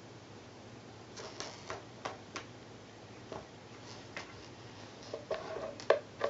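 Scattered light clicks and taps, irregular and a few to the second, as a cat noses and fiddles at the edge of a corrugated cardboard scratcher. The loudest tap comes near the end.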